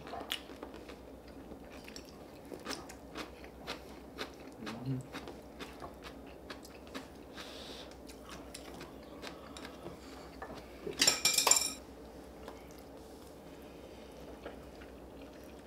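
People eating a meal: chewing and biting, with frequent small clicks of utensils against dishes. About two-thirds of the way through there is one brief, louder clatter.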